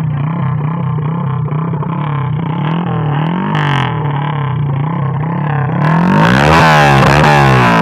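Modified Honda CD70 single-cylinder four-stroke motorcycle engine running with a steady, wavering drone, getting louder and rougher from about six seconds in as it is revved.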